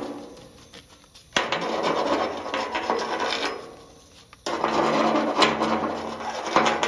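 Weld slag being scraped off welded steel C-channel with a hand tool: long rasping scrapes of metal on metal. One run starts abruptly about a second and a half in and another about four and a half seconds in, and each fades away over a couple of seconds.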